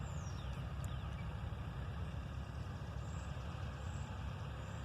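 Steady low rumble of a vehicle engine, such as an idling truck, with a few faint high chirps over it.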